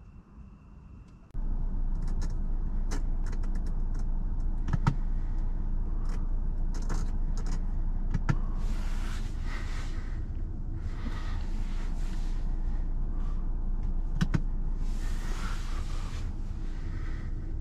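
Cabin sound of a BMW 530i Touring with a 2.0-litre turbo engine driving slowly: a steady low engine and road hum that comes in suddenly about a second in. Sharp clicks are scattered throughout, and several second-long patches of hiss come and go.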